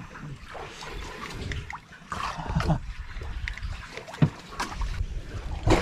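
Sea water lapping and splashing against a small wooden outrigger fishing boat, with low rumble and a few sharp knocks and clicks from gear being handled on board, the loudest about four seconds in and near the end.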